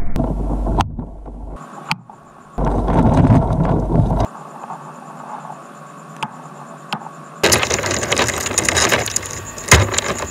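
A few sharp clicks, then two stretches of crackling, crunching noise. The second is louder, starts about seven seconds in and has sharp knocks near the end. Each stretch starts and stops abruptly.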